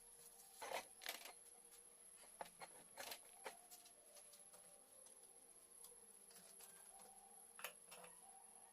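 Faint, scattered clicks and light knocks of small parts and tools being handled: a handful in the first few seconds and one more near the end, over a quiet background with a faint steady high whine.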